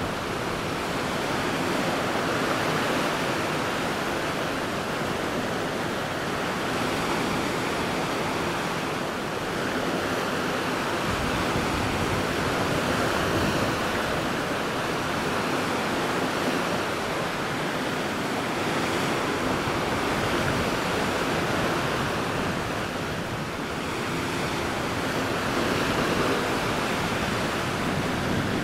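Steady rush of sea water with some wind, swelling and easing every few seconds like passing waves.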